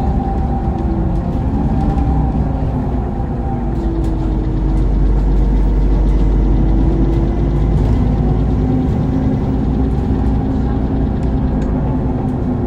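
Mercedes-Benz Citaro CNG bus under way, heard from inside: a steady low rumble from the gas engine with whining tones from the drivetrain and ZF Ecomat automatic gearbox that rise and fall in pitch as the bus changes speed.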